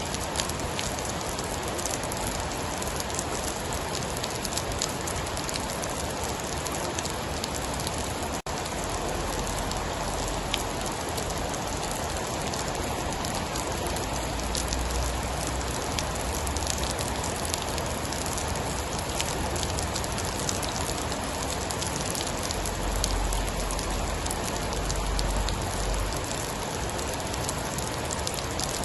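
Steady heavy rain falling, a dense even hiss with fine scattered drop ticks. A low rumble swells up under it several times.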